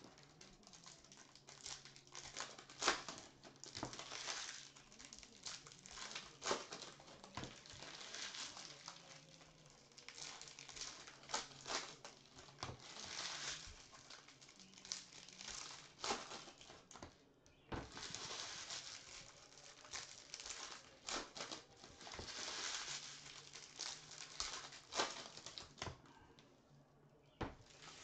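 A stack of paper and chrome baseball trading cards being handled, dealt off one at a time and squared up on a mat. The cards make crinkling, rustling swishes with frequent sharp clicks and taps.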